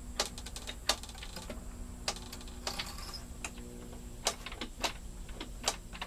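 Camper door lock and latch clicking and clacking as it is worked by hand, a dozen or so sharp, irregular clicks: the newly reassembled lock mechanism being tested.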